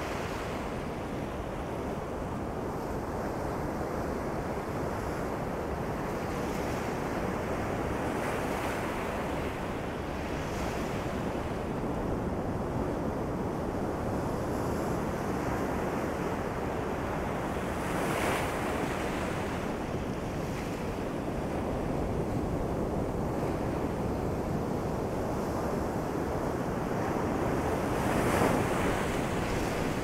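Ocean surf rolling in on a sandy beach: a steady wash of waves, with a louder breaker a little past halfway and another near the end.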